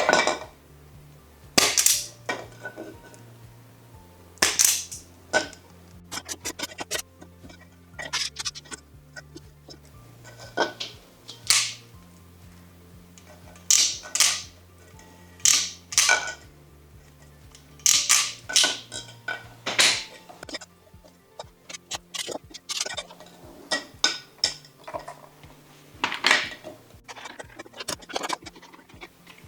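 Background music with a low bass line that steps in pitch every second or two, over sharp, irregular clicks and clinks, like small hard parts being handled and fitted in an electrical panel.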